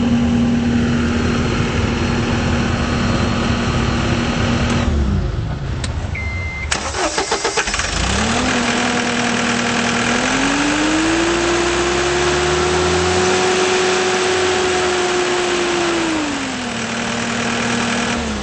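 John Deere 320D skid steer's diesel engine running steadily, then shutting down about five seconds in. A short beep follows, then a few seconds of starter cranking before the engine catches and idles. It revs up to a higher steady speed, drops back to idle, and is shut off at the very end.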